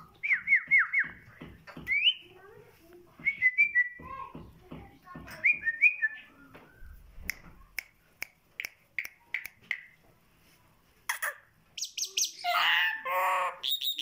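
Caged myna calling: short whistled notes sliding up and down, then a run of sharp clicks, and near the end a louder, speech-like babbling stretch of mimicry.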